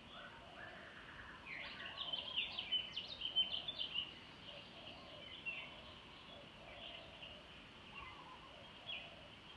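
Small birds chirping, with a quick flurry of calls about two to four seconds in and sparser chirps after, over faint steady background noise.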